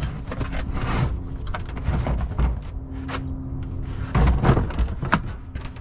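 Hard plastic Milwaukee Packout tool cases knocking and clicking as one is handled, set down and locked onto another. The heaviest clunks come about four seconds in.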